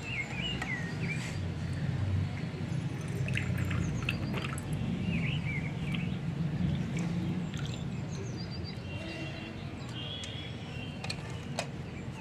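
Birds chirping in a few short bursts of calls over a steady low background rumble, with a few light clicks and knocks.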